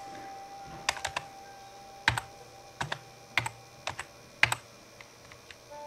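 Computer keyboard being typed on slowly: about a dozen sharp, irregularly spaced keystrokes, some in quick pairs. They start about a second in and stop well before the end.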